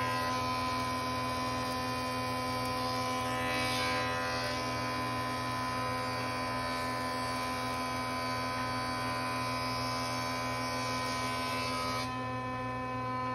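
Thickness planer running steadily with a hum while a walnut board is fed through and planed down toward 5/8 inch thick, with the rush of the cutterhead on the wood over the hum.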